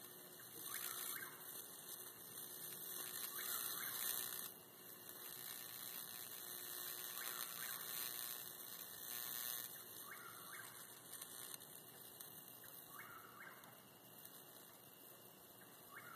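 Electric bug zapper arcing through an insect stuck on its high-voltage grid: a faint, high-pitched continuous sizzle with flare-ups every two to three seconds as the bug keeps frying.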